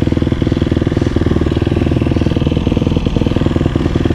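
GasGas dirt bike engine idling steadily with an even, rapid pulse, heard close up from the rider's seat.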